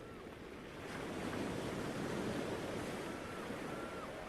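Sea waves breaking on a shore: a wave swells about a second in and slowly ebbs away.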